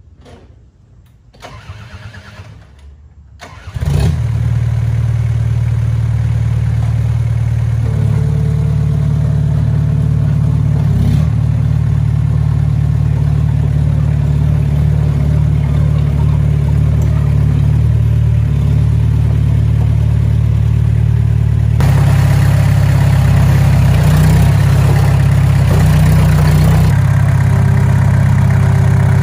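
Komatsu D21A bulldozer's diesel engine starting about four seconds in, then running steadily at a low, even pitch, a little louder for a few seconds past the middle.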